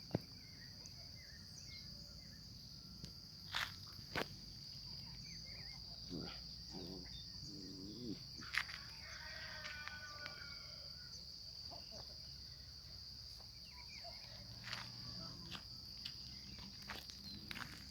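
Faint steady high-pitched trilling of insects, with a few scattered soft clicks and faint chirps.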